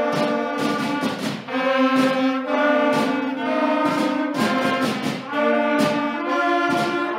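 Sixth-grade school concert band playing a piece together. Flutes, clarinets, saxophones and brass hold full chords, with regular percussion hits.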